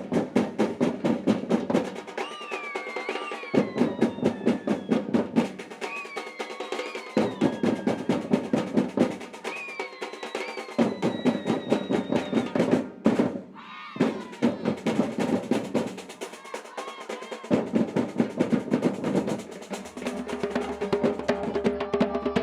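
Brazilian samba percussion (batucada): fast, dense snare and drum strokes over a recurring low bass-drum pattern, with a pitched sound sliding up and down over it now and then. The drumming drops out briefly about 13 seconds in, and steadier pitched tones come in near the end.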